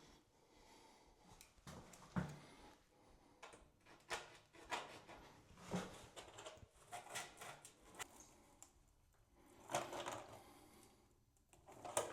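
Screws being driven by hand with a screwdriver through the shower door's metal hardware: faint, irregular clicking and scraping of the bit and screws on metal, with a few louder bursts.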